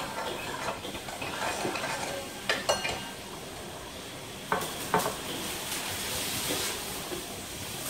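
A steady hiss with two pairs of sharp clinks, the first pair about two and a half seconds in and the second about two seconds later; one clink rings briefly.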